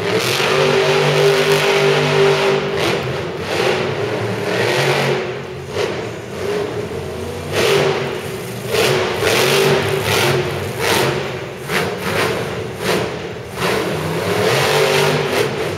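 Monster truck's supercharged big-block V8 revving hard in repeated throttle surges, its pitch rising and falling as it powers around the dirt track and over crushed cars.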